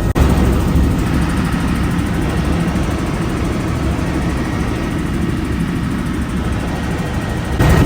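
Steady, loud rumble of a vehicle in motion, its engine noise heaviest at the low end, with an abrupt jump in level near the end.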